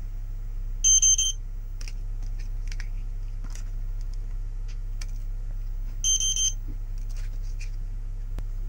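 Electronic beeper on the device under test giving two short bursts of quick, high-pitched beeps about five seconds apart, over a steady low hum. This is the unwanted beeping the title counts as 8 beeps a minute, the device's sound problem.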